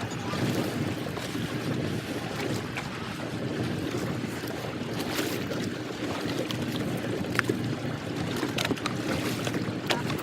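Fishing boat on the water: a steady engine hum under wind on the microphone and water noise, with scattered small clicks and knocks.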